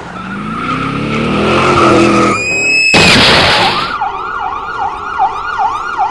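A motorcycle engine revs up, then tyres screech for about half a second and a loud crash follows about three seconds in. An emergency siren then wails, rising and falling about twice a second.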